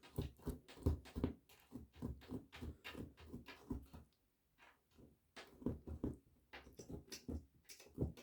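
Sphynx kitten licking and smacking at soft kitten food paste: a quick, irregular run of wet clicks and smacks, several a second, with a short pause about four seconds in.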